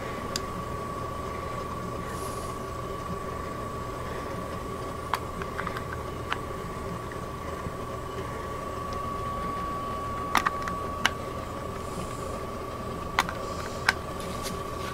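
Scattered sharp clicks and taps of a cable and plastic plug being handled and plugged into a connector, several in a cluster about ten seconds in and two more near the end, over a steady hum with a thin high whine.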